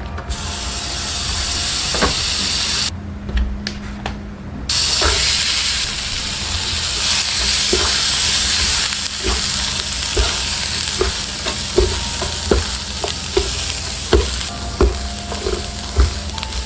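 Food sizzling in a hot pan of oil, the hiss dropping out briefly about three seconds in. In the second half a utensil clicks against the pan about twice a second as the food is stirred.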